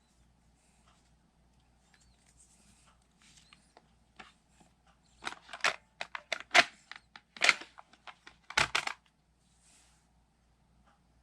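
Small plastic toy pieces clicking and clacking as play dough is worked into shape molds: faint handling at first, then a quick run of sharp clicks in the second half.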